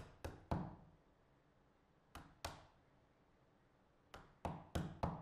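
Mallet striking a wooden-handled bench chisel, chopping the end of a routed stopped dado square in plywood. Sharp knocks in three quick runs of blows about a quarter-second apart: three at the start, two about two seconds in, and four near the end.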